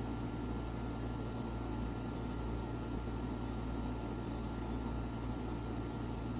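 Steady low hum and hiss of background room noise, unchanging, with no distinct sounds standing out.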